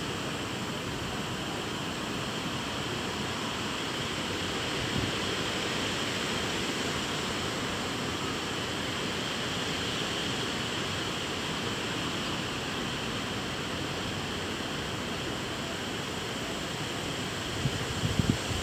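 Steady rushing wind noise, with low gusts buffeting the microphone near the end.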